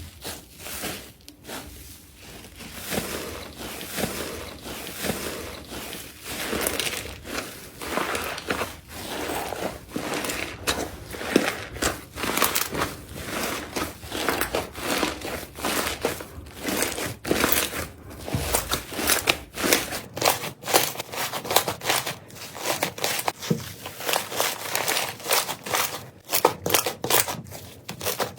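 Slime being squeezed and pressed by hand, making dense crackling and clicking. From about twenty seconds in the clicks become sharper and more separate.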